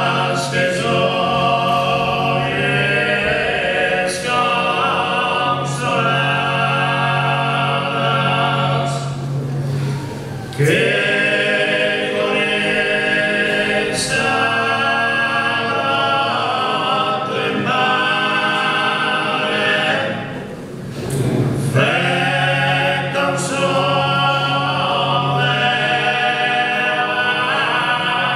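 Sardinian cuntzertu (canto a cuncordu): four male voices singing unaccompanied in close harmony, the deep bassu voice holding a steady low drone beneath the lead and the other parts. The singing runs in three long phrases, the voices breaking off together and re-entering about ten seconds in and again about two-thirds through.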